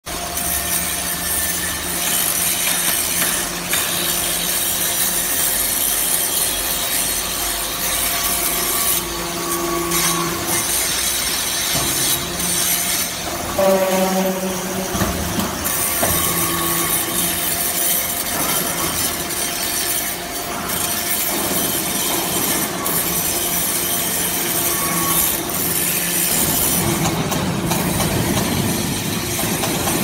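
Hydraulic metal-chip briquetting machine running: the chip conveyor carries metal turnings with a steady metallic scraping and hiss, over the hum of the hydraulic power unit, which changes pitch a few times.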